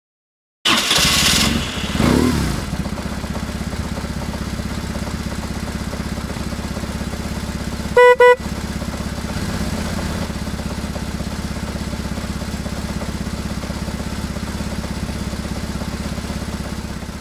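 Motorcycle boxer-twin engine, from a BMW R1150GS, coming in about a second in with a brief rev and then idling steadily with an even pulse. The horn gives two short beeps around the middle, and the engine fades near the end.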